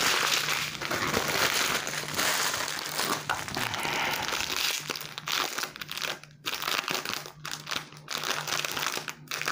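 Plastic packaging crinkling and rustling as small bags of diamond painting drills are handled, with irregular crackles throughout.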